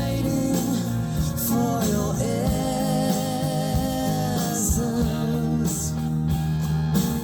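A song played back through a hi-fi system for a CD player sound test: a sung vocal line with held, wavering notes over guitar and steady chords.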